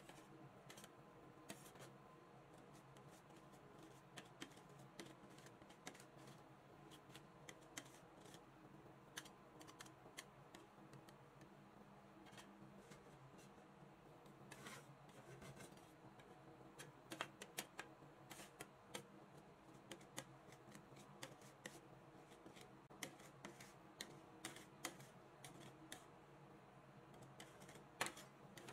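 Metal spatulas scraping, tapping and chopping ice cream on the cold steel plate of a rolled-ice-cream machine: a quiet run of irregular clicks and scrapes, over a faint steady hum.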